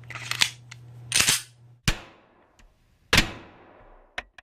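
Sharp gunshot-like reports: two loud cracks about a second and a half apart, each with a fading echo, after a stretch of rustling noise over a low hum.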